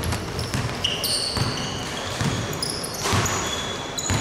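Basketball bouncing on a hardwood court, with repeated thuds about once a second. Sneakers squeak on the floor as players run.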